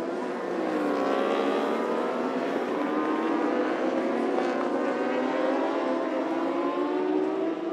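Racing superbike engines at high revs, several engine notes overlapping, their pitch climbing as the bikes accelerate through the gears.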